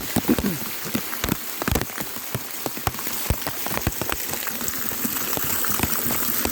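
Heavy rain falling, with many separate drop impacts splashing on hard surfaces over a steady hiss.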